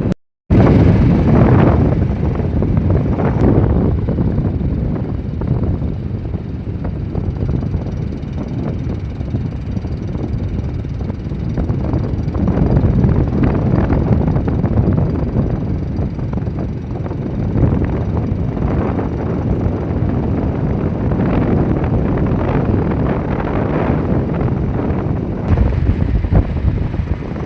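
Wind buffeting the microphone: a loud low rumble that swells and eases in gusts, cutting out briefly just after the start.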